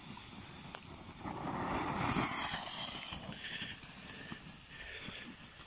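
Small ground fountain fireworks, a Lesli Joystick and a Glitzerregen, burning with a hissing fizz of sparks and scattered crackles. The hiss swells about a second in and eases off after about three seconds.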